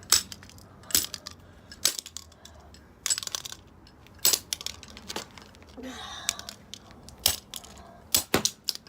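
Plastic fidget cube being struck again and again to smash it open: sharp, hard hits about once a second, a few coming in quick pairs.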